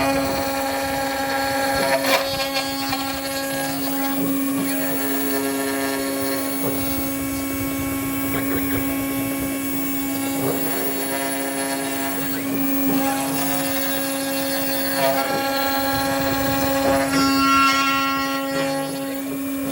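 CNC machine running: a steady motor hum held on one pitch, with shorter higher tones that come and go every few seconds as the machine moves.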